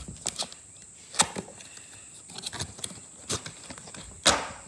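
Cardboard box being handled and opened: a series of irregular sharp knocks and clicks, the loudest about a second in and near the end.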